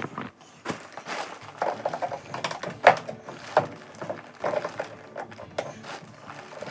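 Irregular knocks, clicks and rubbing of hands working on the parts of a washing machine, with a few short squeaky or ringing notes in between.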